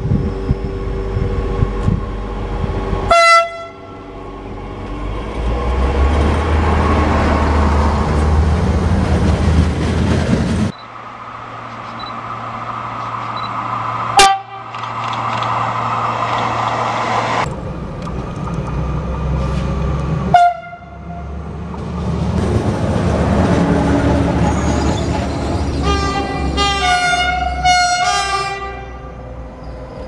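Trains passing through stations and sounding their horns, in several short clips that cut abruptly from one to the next. There is a horn blast about three seconds in, a short toot near the middle, another blast about twenty seconds in, and a longer series of horn tones near the end, all over the rumble of the passing trains.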